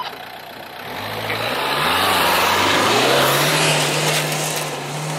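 Renault Duster AWD's 1.5 dCi four-cylinder diesel revving hard under full throttle, with ESP switched off so the throttle is not cut, while its tyres churn loose dirt up the slope. The engine note rises about a second in and then holds, with a loud rush of tyre and dirt noise in the middle.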